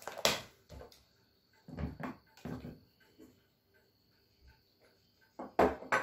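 Parts being handled on a wooden tabletop: a small plastic parts box being rummaged and a cylindrical metal vacuum-motor housing being picked up and moved. It comes as a handful of separate knocks and clatters, the loudest just before the end.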